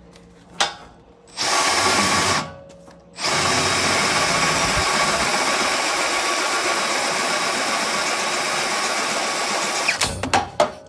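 Makita 18-volt cordless drill boring a 1/2-inch hole in steel channel iron with a cobalt bit, run dry without cutting oil: a short burst, a pause, then a steady run of about seven seconds that cuts off suddenly near the end as the bit grabs and snaps, followed by a few sharp clicks.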